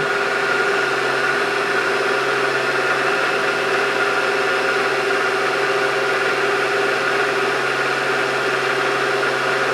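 Machine tool's spindle and motor running steadily during edge finding, giving a constant hum with several steady tones over a mechanical hiss.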